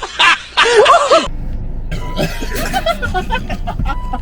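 Giggling in quick bursts for about a second, then the sound cuts abruptly to background music with faint voices.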